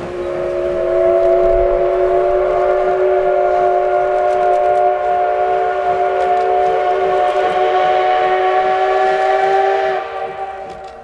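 Steam whistle of the C58 239 steam locomotive blowing one long blast of about ten seconds, several tones sounding together as a chord, creeping slightly up in pitch and cutting off about ten seconds in.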